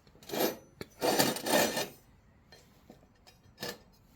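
Steel angle iron scraping and sliding as the pieces are handled: a short scrape about half a second in, a longer one lasting about a second, and a brief one near the end.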